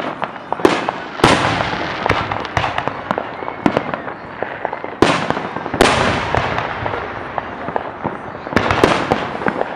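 Fireworks going off: several sharp, loud bangs a few seconds apart, each trailing off in a crackling, fading rumble, with scattered small pops in between.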